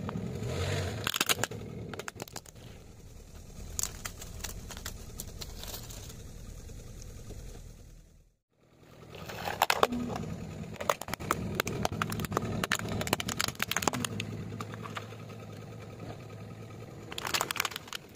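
Car tyre rolling over plastic toy vehicles on asphalt and crushing them: a toy bus cracking and snapping under the tyre, then, after a brief break, a plastic toy dump truck splintering with many sharp cracks, loudest near the end.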